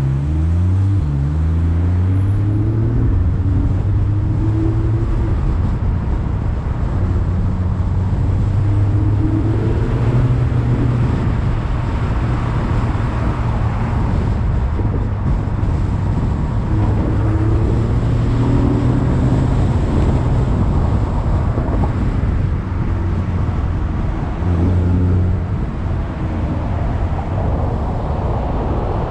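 Car engine and tyre noise while driving. The engine's pitch rises as it accelerates through the gears after pulling away, and rises again several more times, over steady road and wind rumble.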